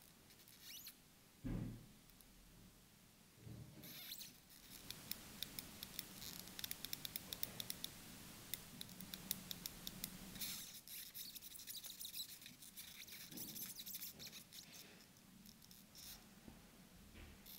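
Seiko 5 Sports watch's unidirectional rotating bezel being turned by hand: a quick run of small ratcheting clicks starting about four seconds in and thinning out after about ten seconds, followed by softer fingers-on-metal handling sounds. A soft low thump comes early, as the watch is handled.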